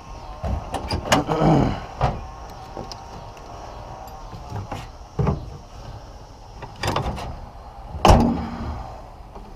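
Ratchet strap and gear being handled in a pickup truck bed: a handful of sharp metallic knocks and clanks spread through, with brief scraping between them.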